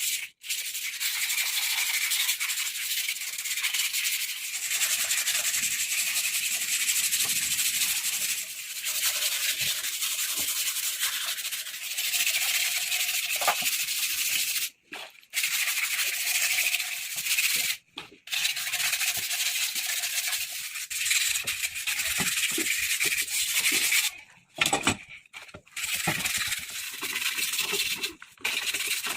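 Sandpaper rubbing on the motorcycle's metal parts, stripping rust and old paint: a steady scratchy rubbing, broken by a few short pauses.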